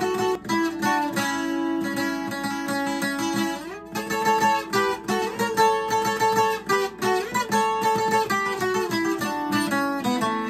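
Twelve-string acoustic guitar played requinto-style: fast single-note picked lead runs, with a note slid up the neck just before four seconds in.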